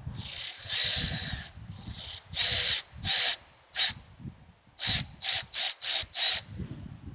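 A series of sharp hissing bursts: one long burst, a few shorter ones, then five quick bursts in about a second and a half.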